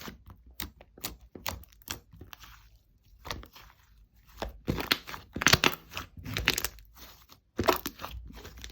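Handmade slime being squeezed and pressed by hand, giving irregular clusters of sharp crackling, popping clicks, densest in the second half.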